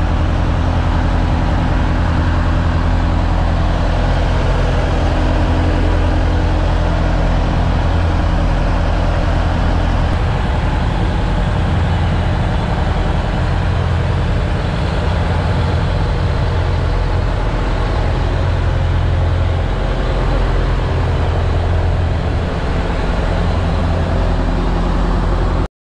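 Fishing boat's engine running steadily under way, a loud low drone with the rush of water and wind over it.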